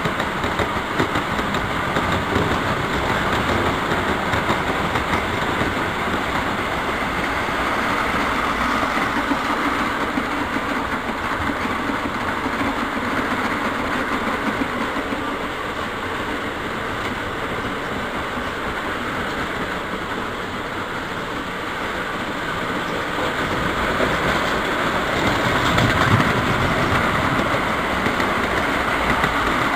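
O gauge three-rail model trains running on the track: a steady rumble and clatter of wheels and motors, growing louder for a few seconds near the end.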